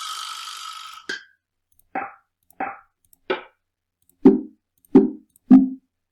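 Audio samples auditioned one after another in Ableton Live's browser preview: a noisy swish lasting about a second, then a run of seven short one-shot sounds, each different, the last three louder and lower like drum hits.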